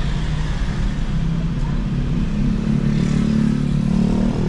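Chevrolet S10 pickup driving, its engine and road noise heard steadily from inside the cab. A stronger engine note swells about three seconds in and fades near the end.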